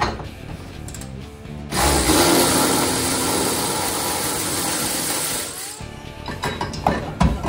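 A cordless power tool runs for about four seconds, starting about two seconds in, driving a bolt on the transmission mount. It is followed by scattered clicks and knocks of tools and metal, with a low thump near the end.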